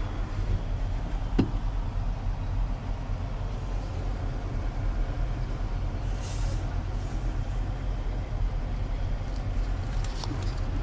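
KAMAZ truck's diesel engine idling, a steady low rumble heard inside the cab. There is a single knock about a second and a half in and a short hiss about six seconds in.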